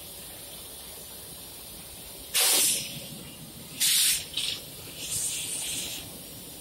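Compressed air hissing from the air-brake hose between a locomotive and a passenger coach as it is vented during coupling. There are two loud blasts, about two and a half and four seconds in, then a short hiss and a longer, softer one.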